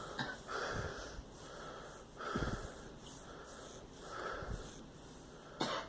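A girl with a cold breathing wheezily and raspily: three rough breaths about a second and a half apart, the middle one the loudest, with a short sharp sound near the end.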